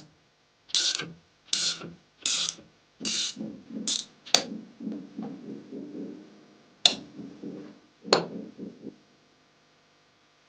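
Ratcheting socket wrench worked in repeated strokes, about one every 0.7 s, turning the crimping tool's drive anti-clockwise to loosen the jaws. Two sharp clicks come later, and the strokes stop about 9 seconds in.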